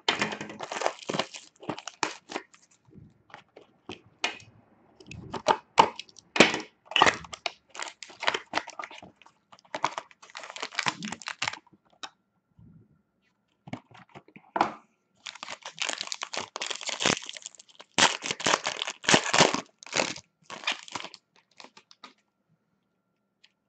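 A cardboard hockey card box being torn open, then its foil-wrapped pack torn and the cards pulled out: crinkling, tearing and paper handling that comes in bursts with short gaps. The busiest run of crinkling falls past the middle, and it goes quiet near the end.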